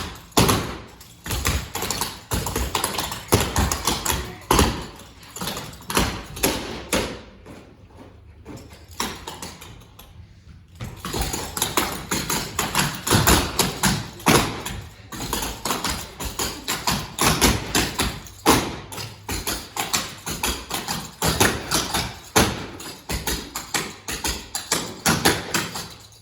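A group of children stepping in a chair dance routine: rhythmic taps and thumps from feet and hands on the floor and chairs, with a quieter stretch about a third of the way through.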